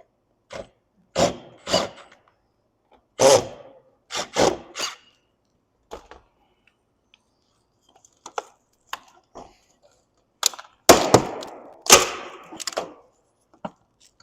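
Irregular knocks and thunks of hand tools working at the old TV antenna mount on a camper roof: a handful of sharp hits, lighter clicks in the middle, and a louder cluster of hits near the end, the antenna not coming loose.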